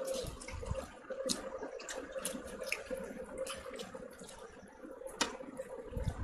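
Wet eating sounds: fingers squishing and mixing white rice with chicken curry and dal, and mouth smacks while chewing. Many short, sharp wet clicks come at irregular intervals, over a faint steady hum.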